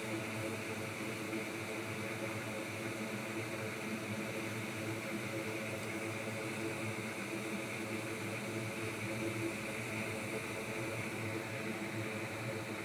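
A steady mechanical whir with a hiss, like a small fan or blower running; the hiss fades out near the end.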